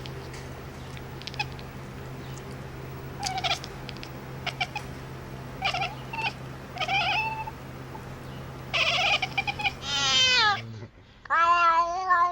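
A cat meowing: several short meows and chirps, then a quick falling cry about ten seconds in and a longer, wavering meow near the end.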